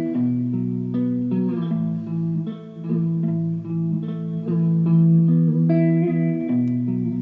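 Guitar notes and chords ringing through a homemade effects pedal with its vibrato pitch section switched on, which fiddles with the pitch a bit. A new note or chord comes in about once a second.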